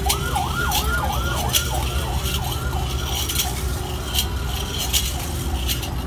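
An electronic siren-like warble, rising and falling about four times a second, begins sharply and slowly fades away. A steady low hum and a few sharp clinks sit under it.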